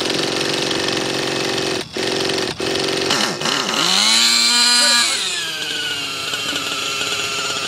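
Nitro glow engine of an Align T-Rex 600 RC helicopter buzzing, then revving up sharply about three and a half seconds in and dropping back to a steadier, lower run about five seconds in. It is a hot start: the engine caught with the throttle stick set too high.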